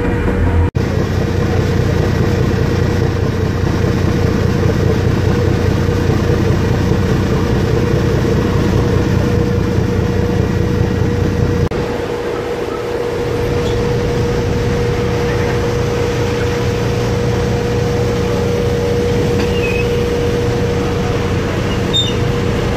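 Steady drone of a roll-on/roll-off ferry's engines and machinery, with a constant hum tone over a rumble; about halfway through, the deepest part of the rumble drops away and the hum continues.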